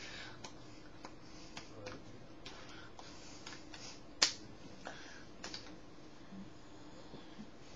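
Scattered light taps and clicks, irregular, from hands meeting hands and body while signing, with one sharper tap about four seconds in, over quiet room tone.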